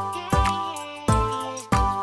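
Background music with a steady beat, just under two beats a second.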